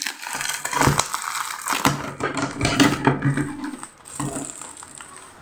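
Bubble wrap and clear plastic wrapping crinkling and crackling in irregular bursts as hands pull it off a boxed toy figure.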